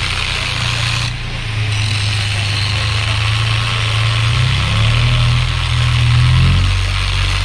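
An engine running with a low, steady hum that rises in pitch in the second half and falls back near the end, under the hiss of an angle grinder cutting metal, which pauses briefly about a second in.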